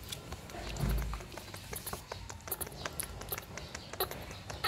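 Scattered light clicks and taps with one low thump about a second in, as a baby macaque clambers on the rim of a plastic basin.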